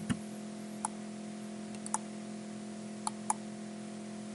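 Computer mouse clicking about five times, two of the clicks in quick succession about three seconds in, over a steady low electrical hum.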